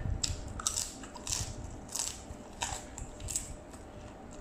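Close-up crunching of a crisp kerupuk cracker being bitten and chewed, a sharp crunch about every half second or so.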